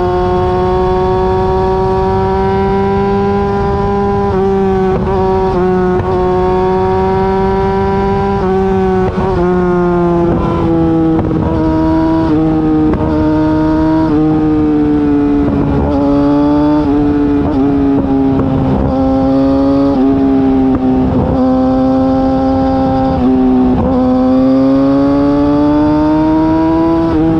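Yamaha R6's inline-four engine through an Akrapovic exhaust, running steadily while the bike cruises. The pitch sags slowly with a few brief dips, then climbs again near the end.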